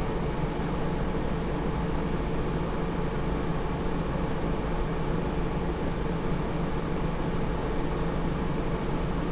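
Iveco Crossway LE bus engine idling steadily while the bus stands at a stop, a low, even rumble with a steady hum over it.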